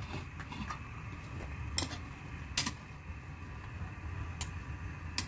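Metal spoon knocking and scraping against an aluminium wok while stirring a simmering stew, a few sharp clinks spaced about a second apart over a low steady hum.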